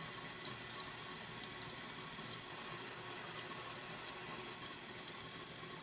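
Toilet tank refilling through a new Fluidmaster universal fill valve: a steady rush of water into the tank, with the refill tube streaming into the overflow pipe.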